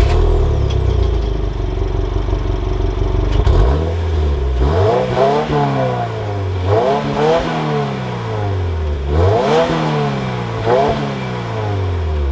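2022 Subaru WRX's 2.4-litre turbocharged boxer four-cylinder idling steadily just after start-up, heard from the quad-tip exhaust. About three and a half seconds in it is revved several times, each rev rising in pitch and then sinking back toward idle.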